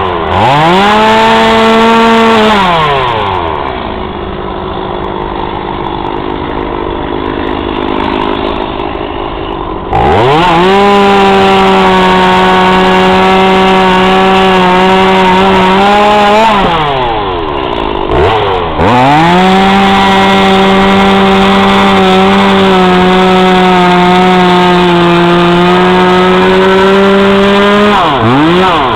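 Two-stroke chainsaw revved to full throttle three times. It holds a high, steady note for several seconds each time, with the pitch sagging slightly now and then, and it drops back to idle in between.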